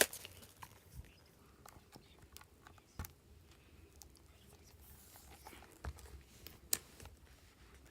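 Quiet handling of a boxed photobook and its packaging: soft rustling with a few scattered light taps and clicks, the sharpest about three seconds in and near the end.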